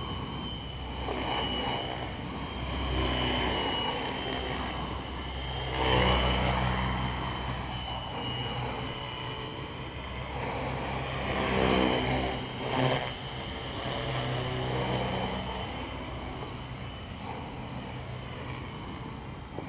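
Belt-drive Funcopter electric RC helicopter in flight: a steady high motor whine over rotor noise, swelling louder about six seconds in and again around twelve seconds in.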